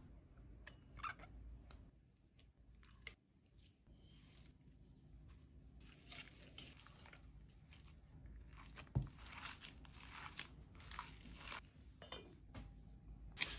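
Quiet, irregular crunching and rustling of food being handled in a kitchen, with a sharper knock about nine seconds in.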